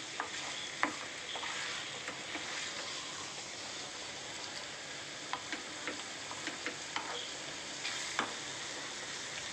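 Chicken pieces in spice masala sizzling in an aluminium pressure cooker over a raised flame. A spatula stirs them, with a steady frying hiss and scattered sharp clicks and scrapes where it knocks against the pot.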